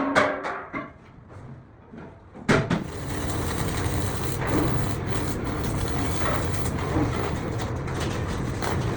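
The tail of metal hammer blows, a short lull, then a steady machine noise that starts suddenly about two and a half seconds in and runs on evenly.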